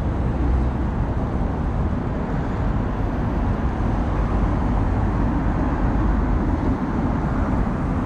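City street traffic noise: a steady, dense rumble and hiss with no single distinct event.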